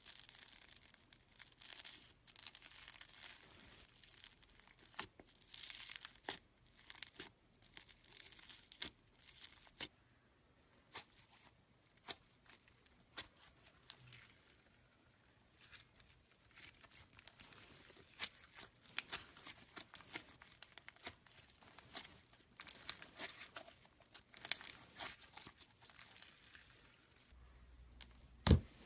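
Slime being squeezed and stretched by hand, making irregular small clicks, pops and crackles. A few louder knocks come at the very end.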